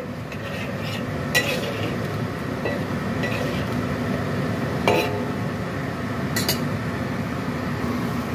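Metal ladle stirring soup in a wok, scraping and clinking against the pan a few times: about a second and a half in, around five seconds in, and again a second and a half later, over a steady hiss of the soup boiling.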